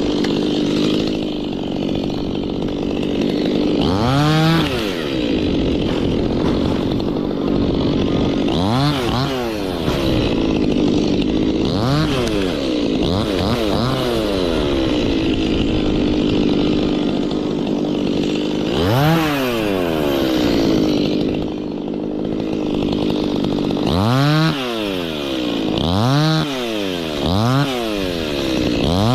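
Stihl two-stroke chainsaw running hard while cutting a tree. Its engine pitch sweeps up and falls back about eight times as the throttle is worked, with a steady run at high speed in between.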